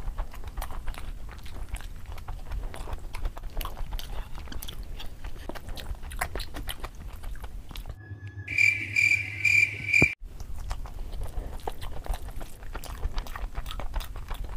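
Close-miked eating sounds of rice and curry eaten by hand: wet chewing and lip smacking with many small clicks. About eight seconds in, the chewing gives way for a couple of seconds to a louder run of evenly repeated high electronic tones, then resumes.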